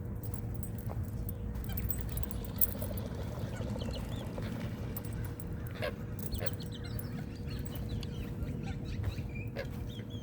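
Scattered short calls of waterbirds, with a few calls together around the middle and again near the end, over a steady low rumble.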